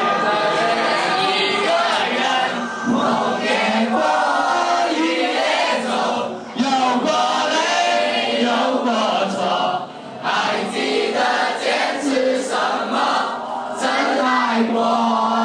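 A large mixed group of schoolboys and schoolgirls singing a song together in unison.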